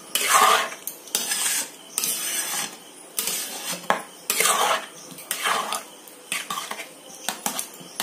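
Metal spatula stirring and scraping thick semolina halwa in a metal pan, in repeated strokes of about half a second, roughly one a second.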